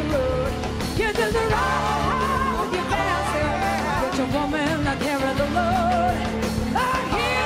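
Live blues-rock band playing, with electric guitars, bass and drums under a woman's lead vocal and backing singers.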